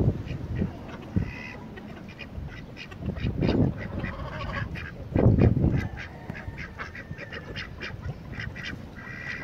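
Domestic ducks quacking and chickens clucking in a mixed flock, short calls over and over. A few low rumbles come through, the loudest about five seconds in.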